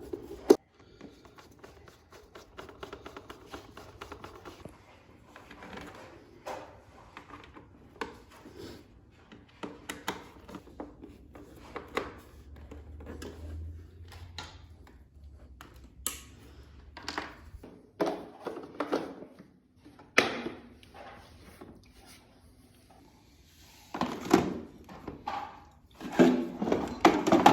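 Irregular clicks and knocks of hard parts being handled and fitted together, with louder clusters of knocks near the end and a faint low hum in the middle.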